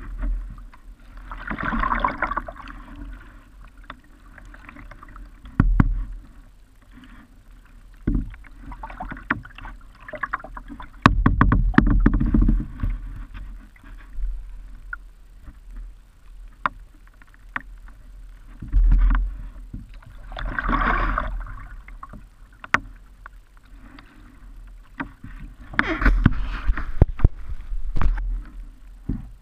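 Kayak paddle strokes in calm river water: the blade splashing in and water dripping off it, in separate swishes every few seconds, with a few sharp knocks between them.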